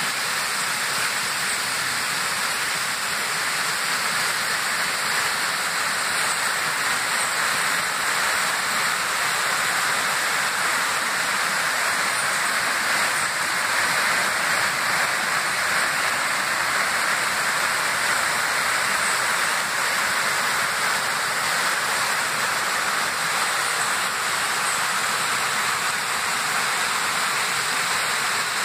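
Steady rush of a rocky mountain stream pouring over boulders and small cascades.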